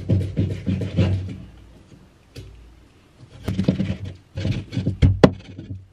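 Meat cleaver chopping raw pork on a wooden chopping block, a quick run of dull knocks several strokes a second. Two bursts, the first about a second long, the second starting after a pause of two seconds or so and ending with the loudest single chop.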